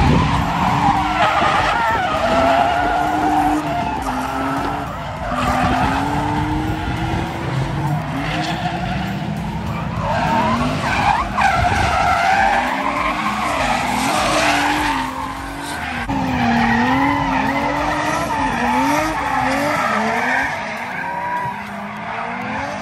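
Drift cars sliding through corners: engines revving up and down with the throttle as they hold the slide, over tyres squealing.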